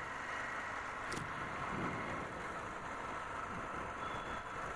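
Motorcycle engine running steadily while riding, with a brief click about a second in.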